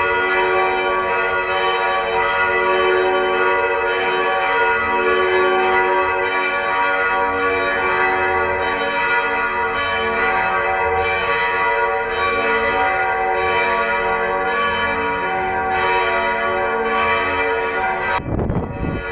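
Several church bells ringing together in a full peal, their strokes overlapping into a continuous ringing with a new strike coming in about every second. Near the end a loud rushing noise sets in over the bells.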